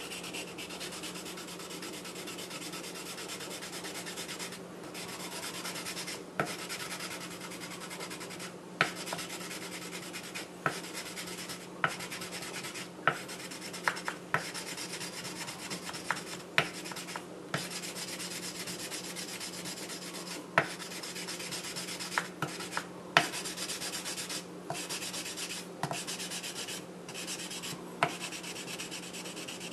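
Wooden block scrubbing a wet emery-powder slurry back and forth along a steel kitchen knife blade, a steady gritty rubbing, abrading away rust and scratches to bring back the whetstone-mark finish. Irregular sharp clicks come every second or few.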